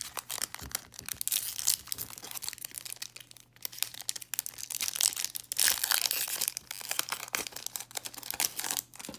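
Crinkling and tearing of a trading-card pack wrapper being ripped open and handled, a dense crackle with louder rustles about a third of the way in and again past the middle.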